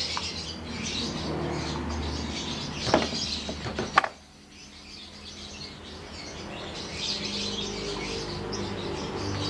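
Small birds chirping, over a steady low hum. Two sharp knocks come about three and four seconds in, after which the hum drops out for a few seconds before returning.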